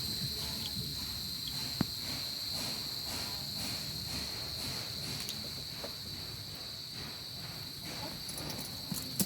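Crickets trilling in a steady high-pitched tone, with a sharp click about two seconds in and another near the end.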